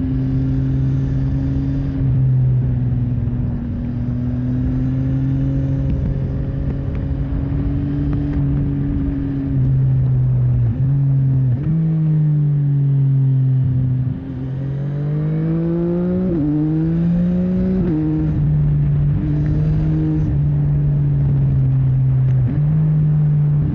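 CFMOTO 675NK's three-cylinder engine running under way, with small throttle changes and gear shifts. About halfway through the revs drop off, then climb twice in quick succession through two upshifts before settling to a steady pace.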